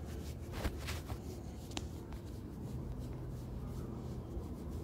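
Fingers scratching a tabby cat's back, a soft rubbing of fur with a few faint clicks in the first two seconds.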